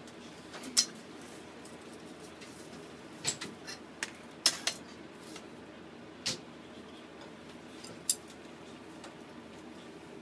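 Cooking utensils knocking against a frying pan: about seven sharp clicks at uneven spacing, over a faint steady background.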